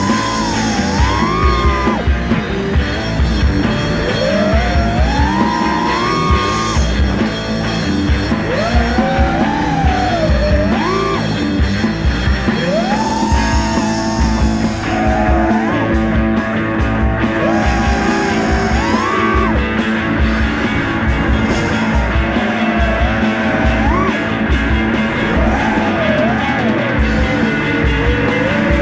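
Rock music with a singing voice or lead line sliding up and down over a steady beat.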